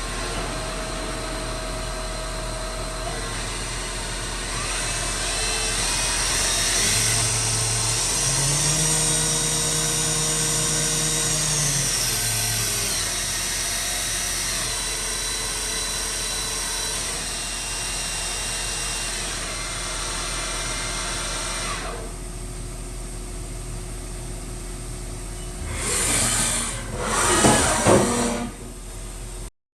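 Haas VF-3 vertical machining center running, with a steady mechanical hum and whine; its spindle whine rises in pitch about seven seconds in, holds, then winds back down about five seconds later. Near the end come two louder, noisy bursts.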